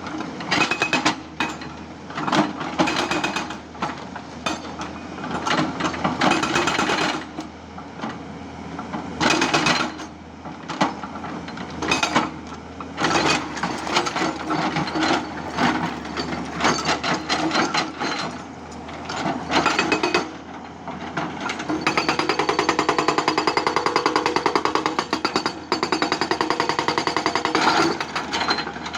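Hydraulic rock breaker on a Tata Hitachi 200 excavator hammering rock in a fast, even rhythm. It works in repeated bursts with short pauses, then runs continuously for several seconds near the end, over the steady hum of the excavator's engine.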